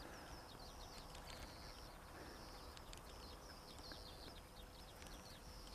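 Near silence: faint outdoor ambience with distant high-pitched chirping calls from small wild animals, repeating again and again.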